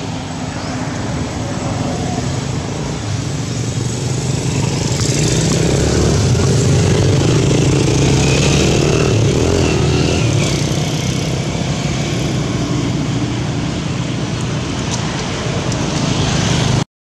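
Steady motor-vehicle traffic noise. It grows louder toward the middle, as an engine passes close by, eases off again, and cuts off suddenly near the end.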